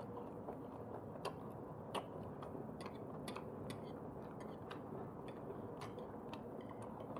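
Eating sounds: small, irregular clicks and taps, a couple of them sharper about a second and two seconds in, over a steady low background hum.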